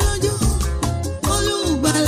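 Background music with steady bass notes and a melody line that slides up and down in pitch.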